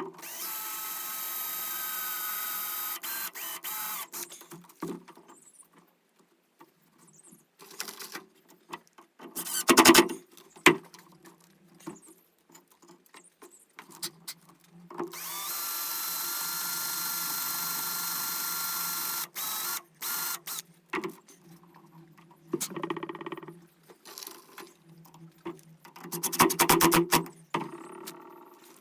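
Power drill driving screws into plywood, run in two spells of several seconds each: one at the start and one from about fifteen seconds in. In between come short bursts of rapid clicking and knocks, loudest around ten seconds and again near the end.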